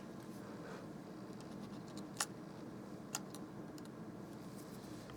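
Two small, sharp clicks about a second apart over a faint steady hum, as a small metal bracket and tools are handled on an opened iPhone 6 Plus.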